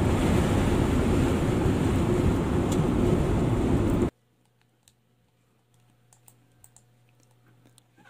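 Steady road and wind noise inside a car cabin at highway speed, cutting off abruptly about halfway through. Near silence follows, with a few faint ticks.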